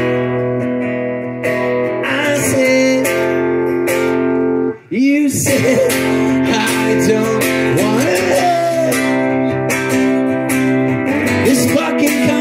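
Solo acoustic guitar strummed in steady chords while a man sings into a microphone, with a short break in the playing about five seconds in.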